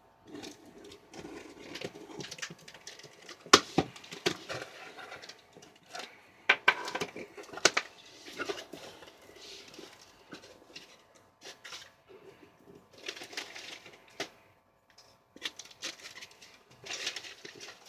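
Handling of a shipping box and its packing: rustling of packing material broken by sharp clicks and knocks, with the loudest rustling near the end.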